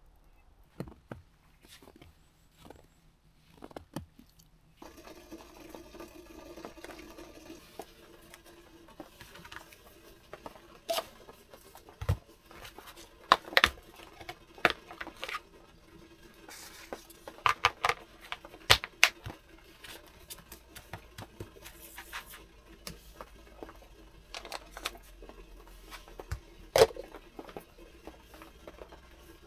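Scattered clicks, taps and knocks of small kitchen items being handled on a table, including a plastic container's clip-on lid being opened and a spoon stirring in a mug, over a low steady hum. The handling starts about five seconds in, after a quiet start.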